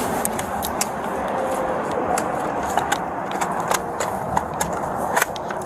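Scattered sharp clicks and rustling of gear and clothing rubbing against a body-worn camera, over a steady background rumble.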